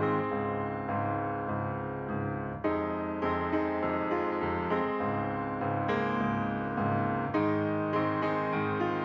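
Background piano music: a slow keyboard melody with notes struck about twice a second.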